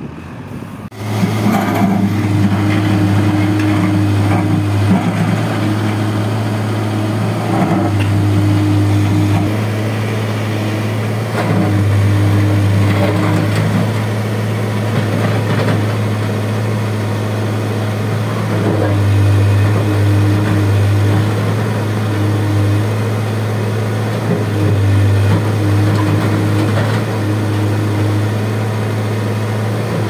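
Case backhoe loader's diesel engine running, starting abruptly about a second in, then a steady deep hum that swells and eases several times as the machine works.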